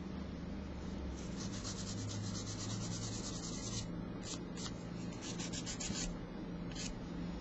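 Nail file rasping on a cured gel nail as it is filed to shape, in quick runs of short strokes: a long run about a second in, a shorter one near the end, with a few single strokes between.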